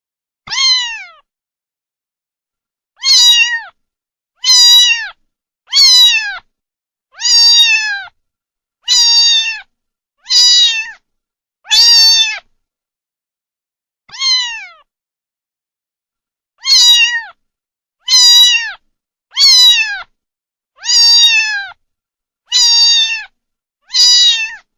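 Cat meowing over and over, about fifteen separate falling meows each under a second long, spaced one to two seconds apart with a longer pause about halfway through.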